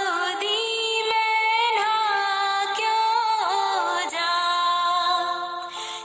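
A woman singing a Rajasthani folk song in long held notes with ornamented bends and slides.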